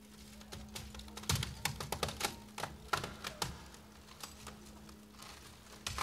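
Ankle bells jingling and bare feet tapping and shuffling on a metal plate in quick, irregular strokes. The strokes come in a dense flurry from about one to three and a half seconds in, then thin out and pick up again near the end, over a low steady hum.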